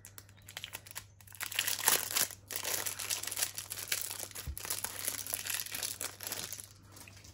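Packaging crinkling and rustling as a pen is unwrapped by hand, getting louder about a second and a half in.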